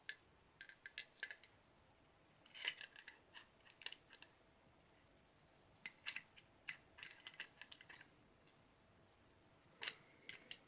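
Scattered light metallic clicks and clinks of small pistol parts being handled and fitted as a Norinco NP34 9mm pistol is put back together.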